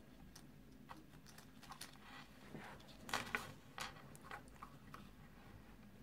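Small hard-plastic Kinder Surprise toy pieces clicking and tapping as fingers with long nails handle them and fit them together; a cluster of louder clicks comes about three seconds in.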